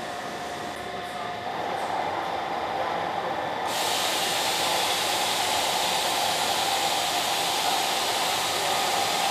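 Steady machinery noise: a hum with a thin steady whine, growing louder about a second and a half in, then a loud steady hiss that sets in abruptly and holds.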